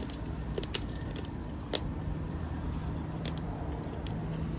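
Baseball cards and their pack wrapper being handled, giving a few light clicks and rustles over a steady low hum.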